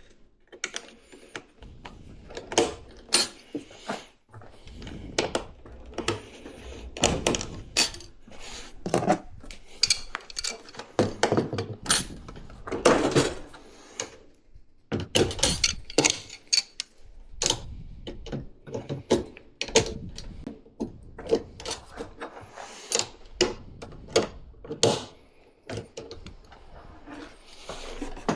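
Irregular knocks, clicks and clatter of tools and parts being handled during appliance installation work, with short pauses between them.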